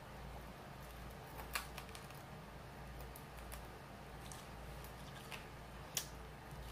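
Mouth sounds of someone gnawing and sucking meat off a chicken wing bone: faint wet smacks and sharp clicks, the loudest about a second and a half in and another near the end.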